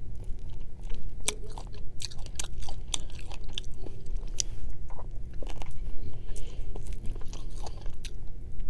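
Close-up eating sounds of someone biting and chewing on a chicken wing, gnawing the meat off the bone, with many irregular crunchy clicks.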